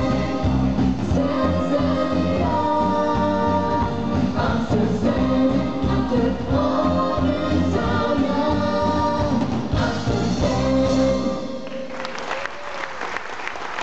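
Live stage band with drums and bass backing a lead singer and ensemble vocals in an upbeat show number. About three-quarters of the way through, the music stops on a final held note and the audience breaks into applause.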